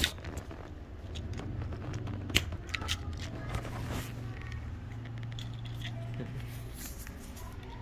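Scattered small clicks and taps from a plastic video converter and its cable being handled and set down, over a steady low hum.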